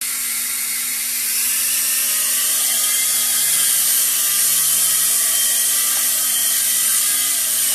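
Rongfuda remote-control toy helicopter's small electric motors and rotors spinning with a steady high-pitched whine, getting slightly louder about a second in.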